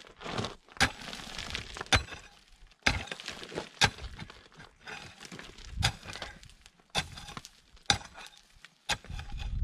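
Steel pickaxe striking hard, rocky ground, with about eight sharp clinking hits roughly a second apart. Loose stones and gravel scrape and rattle between the strokes as the pick drags through them.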